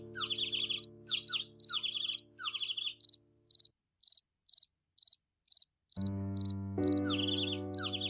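Insects chirping in short, regular pulses about twice a second over a steady low drone. The drone drops out about halfway through, leaving only the chirps, and comes back near the end.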